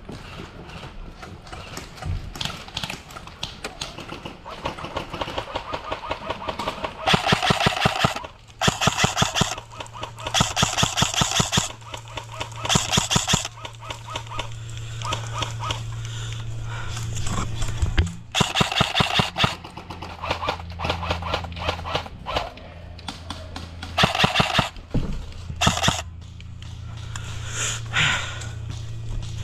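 Airsoft rifles firing in rapid bursts of fast, rattling shots, several bursts over the stretch, each lasting about a second or two.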